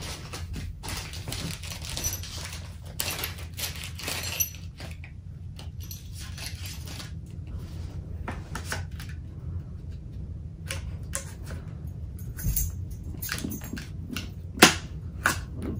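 Scattered handling noises, rustling, scrapes and small clicks, over a steady low hum. Near the end a plastic card is slid into the gap at the hinge of an aluminium Apple monitor stand to release its latch, with one sharp click, the loudest sound.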